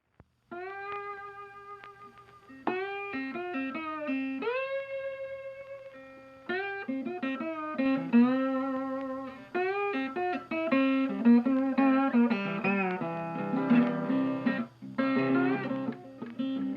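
Background music: a plucked guitar melody whose notes often slide up into pitch, slide-guitar style, over a low sustained note.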